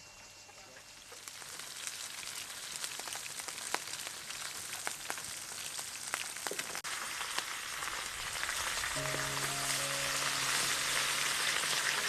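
Fish frying in hot oil in a grill pan: a steady sizzle full of small crackles and pops, starting about a second in and growing louder. Soft music notes come in about three quarters of the way through.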